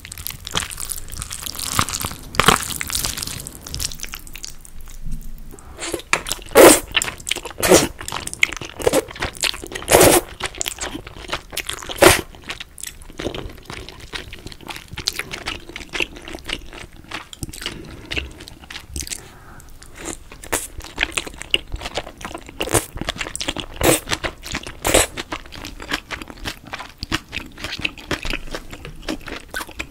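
Close-miked eating: a mouthful of jjajangmyeon (black bean noodles) being chewed, with a string of sharp, loud crunching bites at irregular intervals.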